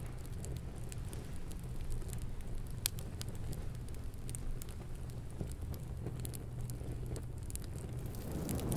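A small fire crackling faintly with scattered sharp pops over a steady low hum. A low rush swells up near the end.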